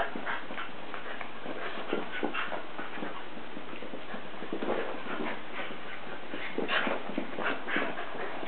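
Small dogs, papillons and a sheltie, play-fighting: irregular scuffling and pattering of paws with short dog noises.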